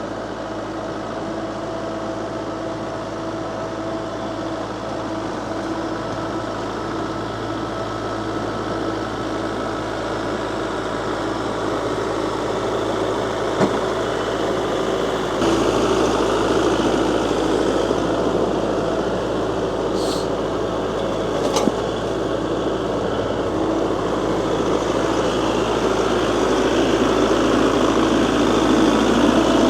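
Kubota compact tractor's diesel engine running steadily while grading dirt. It grows slowly louder, steps up about halfway through, and two short sharp clicks come a little after that.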